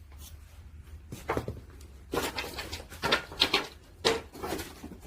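Wood-fired kiln during firing: several short, irregular cracks and knocks, clustered in groups about a second apart, over a steady low rumble.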